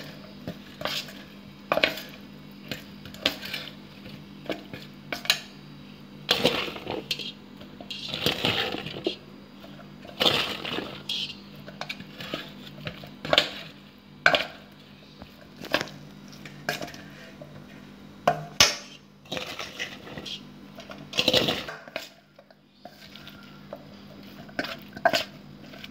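Cauliflower florets being added to a stainless steel bowl of wet spiced batter and mixed by hand: irregular clinks and knocks of steel bowl and plate with wet mixing noises, over a faint steady low hum.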